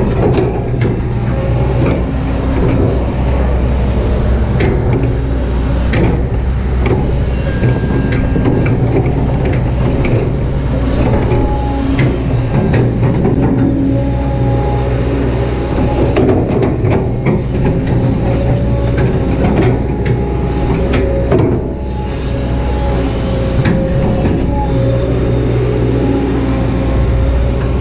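Kobelco SK200-8 hydraulic excavator working: its diesel engine runs steadily under load, with scattered knocks and brief whines from the digging and hydraulics.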